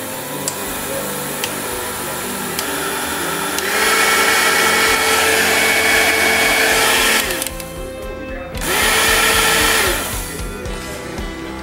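Bosch MFQ4030 electric hand mixer running with its beaters spinning free in the air, a steady motor whine. It speeds up about four seconds in, slows with a falling pitch around seven seconds, speeds up again with a rising pitch a moment later, and slows again near the end.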